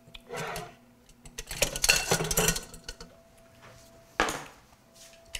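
Metal cookware clattering and clinking while a strainer is dug out of a kitchen cabinet, with one sharp knock about four seconds in.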